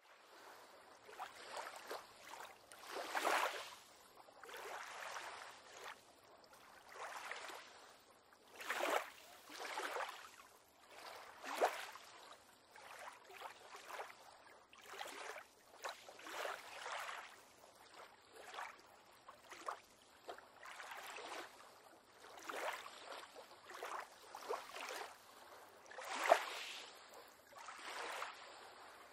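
Small waves lapping and slapping against a pier on calm water, in irregular splashes every second or two, a few of them sharper and louder.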